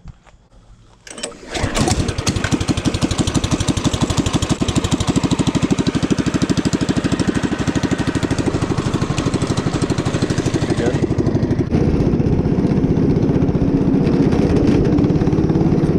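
A go-kart's small gasoline engine starts about a second in and runs steadily with an even pulsing beat. About two-thirds of the way through, the sound changes abruptly as the kart is driven along under way.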